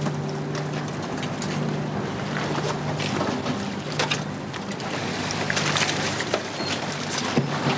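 A ship's engine runs with a steady low hum, with wind noise and scattered knocks and clanks on the steel deck.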